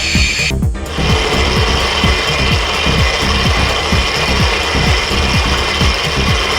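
Large vertical turning lathe machining a slewing ring bearing: steady metal-cutting noise with a fast, repeating low clatter, broken off briefly a little under a second in.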